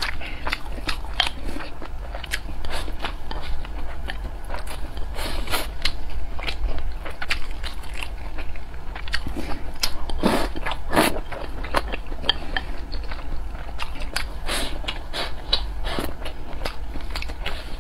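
Close-miked eating sounds: a person chewing rice, fried egg and noodles, with many irregular wet mouth clicks and smacks. A louder, longer mouth sound comes about ten seconds in.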